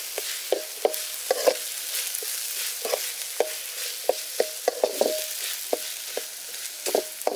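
Onions, ginger-garlic paste and green chillies sizzling in hot oil in an aluminium kadai while a ladle stirs them. The ladle knocks and scrapes against the pan in irregular clanks, some with a short metallic ring, over a steady sizzle.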